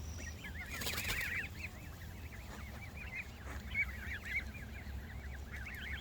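A group of Canada geese calling over one another, with many short honks following in quick succession.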